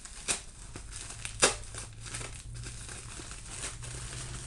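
Plastic packaging crinkling and rustling as a package is opened by hand, with a few sharper crackles, the loudest about a second and a half in.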